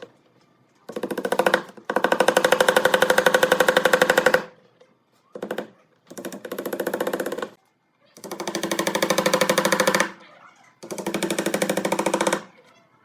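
Handheld power tool running in repeated short bursts of one to two and a half seconds, each a fast, even hammering buzz, with brief pauses between them.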